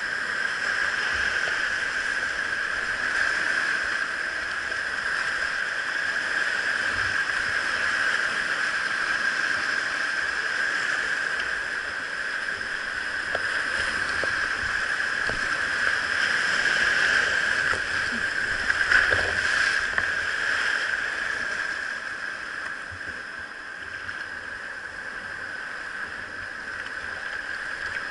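Whitewater of a river rapid rushing steadily, with brief splashes. It swells loudest about two-thirds of the way through, then eases.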